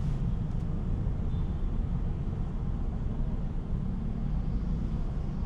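Steady low rumble of cabin noise inside an MG Windsor electric car, road and tyre noise with no engine note.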